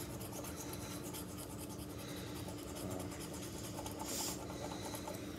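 A scratch-off lottery ticket being scratched, the coating scraped off in rapid back-and-forth strokes, with a brighter, harsher scrape about four seconds in.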